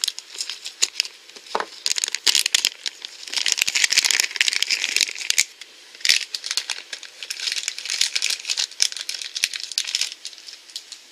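Crinkly plastic blind-bag packaging being handled and opened, a stream of rustles and small crackles, densest about four to five seconds in.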